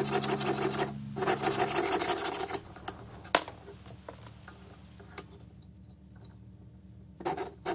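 Jeweler's saw blade cutting through thin copper sheet on a wooden bench pin, a fast rasping of short back-and-forth strokes with a brief pause about a second in. The sawing stops after about two and a half seconds, leaving only a single sharp click. A short burst of sawing returns near the end.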